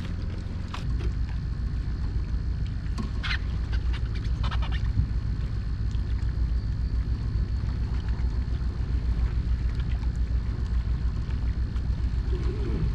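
Pontoon boat's outboard motor running at low idle, a steady low rumble that grows stronger about a second in, with a few short clicks and knocks a few seconds in.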